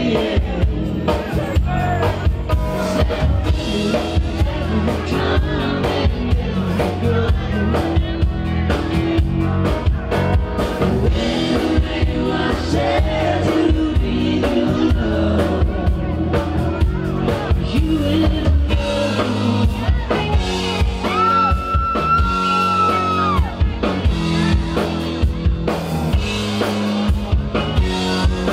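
Live rock band playing: drum kit, bass guitar, electric guitar and keyboard, with a man singing. A long held high note sounds about two-thirds of the way through.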